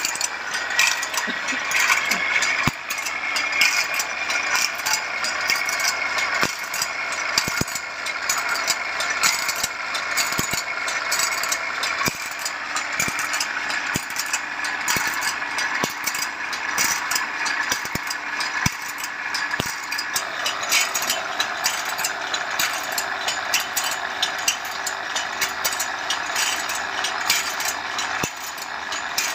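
Automatic bandsaw-blade sharpening machine running, its abrasive grinding disc hissing against the saw teeth with a fast, steady clatter of clicks and an occasional louder knock. A steady hum joins about two-thirds of the way through.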